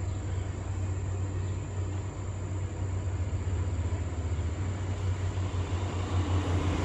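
A steady low rumble, like a motor or engine running.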